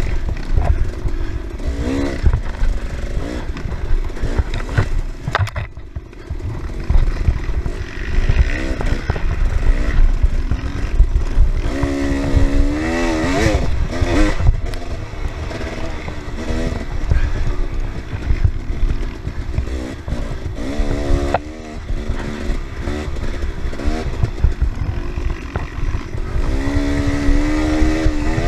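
Dirt bike engine ridden hard, its revs rising and falling with the throttle and gear changes, heard from a camera on the bike with heavy wind rumble. Short knocks and clatter come from the bike hitting ruts and bumps.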